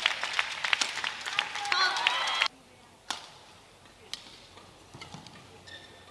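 Arena crowd clapping and cheering, with some voices, cut off abruptly about two and a half seconds in. Then a quieter badminton rally follows: rackets strike the shuttlecock about once a second.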